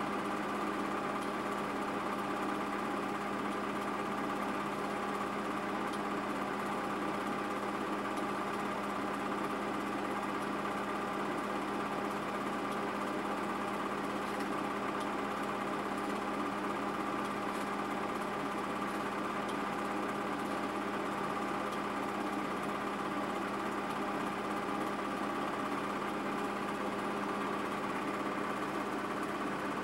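Steady mechanical hum with a few fixed tones over a hiss, unchanging throughout.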